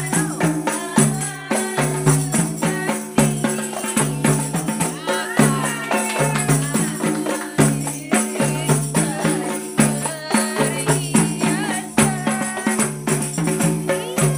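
A qasidah rebana ensemble playing. Hand-struck rebana frame drums beat a steady, repeating rhythm, with the metal jingles of a tambourine rattling over it.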